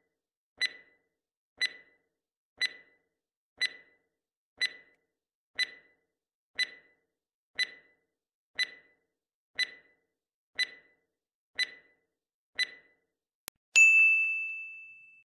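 Quiz countdown timer sound effect: a short, sharp tick once a second, then a bright ding that rings and fades out as the correct answer is revealed.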